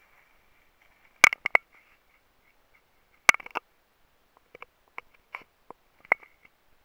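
Sharp clicks and knocks: a quick cluster about a second in and another about three seconds in, then lighter scattered ticks near the end.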